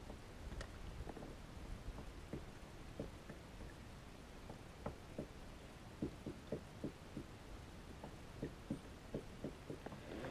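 Faint, irregular light taps and knocks on a plastic sit-on-top kayak, sparse at first and then coming two or three a second in the second half, over a faint low rumble.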